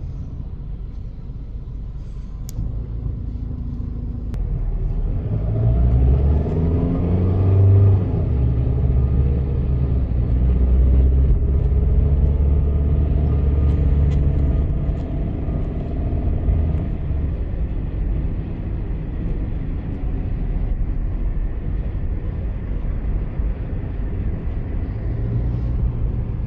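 Car engine and road rumble heard from inside the cabin while driving. About five seconds in, the engine note rises as the car gathers speed, then holds steady.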